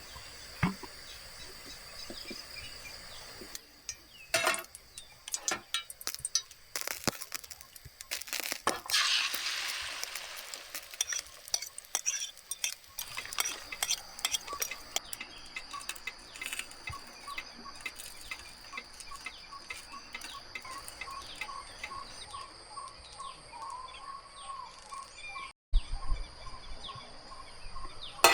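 Jungle ambience: a steady high insect whine with scattered clicks and taps. In the second half a bird calls in a run of short repeated notes.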